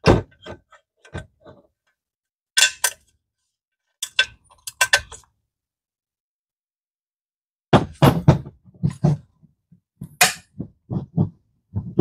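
Short clicks and knocks of metal parts being handled as a roller bearing and washer are fitted into a 1966 Mustang's steel pedal support bracket. They come in several short groups separated by silent gaps.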